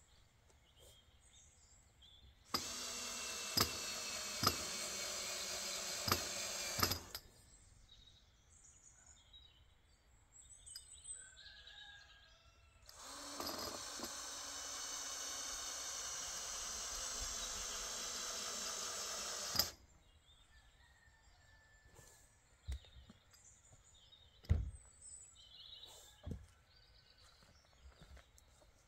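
Cordless drill running in two steady bursts of about four and seven seconds, driving screws to fix timber boards along the base of a chicken run.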